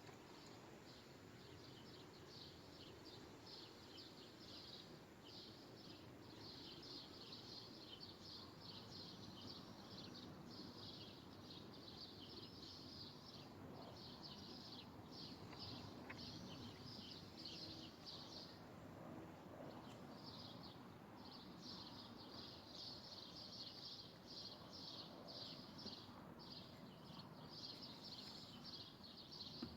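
Faint, high-pitched chirping from outdoor wildlife: fast repeated notes in long runs of several seconds, broken by a short pause a little after the middle, over a soft steady outdoor hiss.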